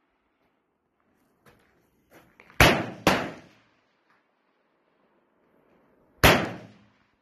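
AK-47 rifle firing 7.62×39 mm rounds one at a time on single-shot setting: two shots about half a second apart, then a third about three seconds later. Fainter single shots from elsewhere on the firing line come just before the first.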